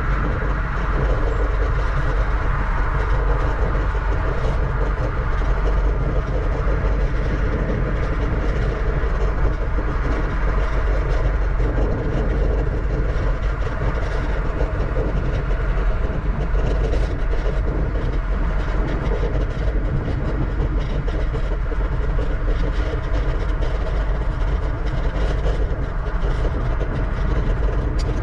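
Steady wind noise buffeting the microphone of an action camera on a moving bicycle, a constant rush with a heavy low rumble.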